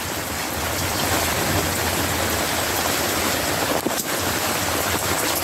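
Heavy rain falling and runoff water rushing over gravelly ground: a steady hiss.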